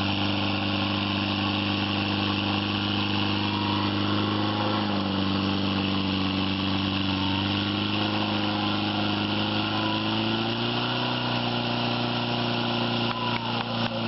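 Small petrol engine of a portable fire pump running steadily at full throttle, pumping water out through the hose lines. Its pitch sags slightly about five seconds in and rises again near ten seconds.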